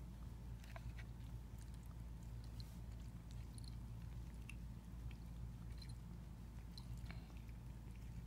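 A cat chewing and licking egg white, faint scattered small clicks, over a steady low hum.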